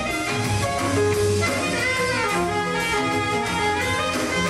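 Live jazz band playing, with a saxophone lead over drums and keyboards.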